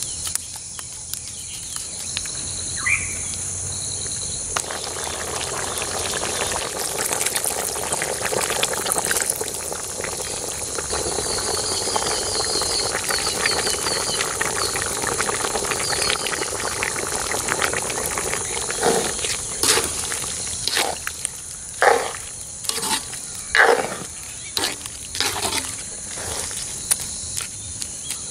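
Prawn stew boiling in a wide metal wok over a wood fire, a steady bubbling hiss that comes in a few seconds in. Insects trill steadily in the background. In the last third a ladle stirs and knocks in the wok several times.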